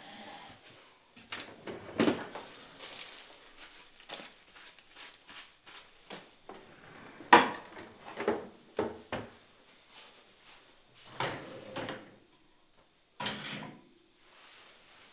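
Dishes and cutlery clattering as a table is cleared and a dishwasher is loaded: a string of separate knocks and clinks, the loudest about seven seconds in.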